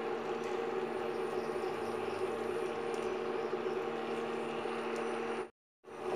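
Steady whir of an induction cooktop's cooling fan, with the hiss of curry simmering in a wok underneath. The sound cuts out completely for a moment near the end.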